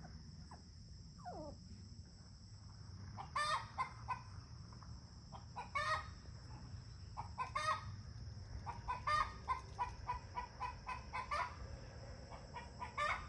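Chickens calling: loud short squawks every couple of seconds, with a quick run of repeated clucks in the middle.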